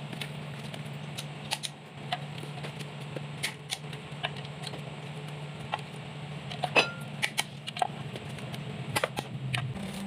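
Irregular light metallic clicks and taps of hand tools and engine parts being handled, with a few sharper knocks about two thirds of the way in. A steady low hum runs beneath them.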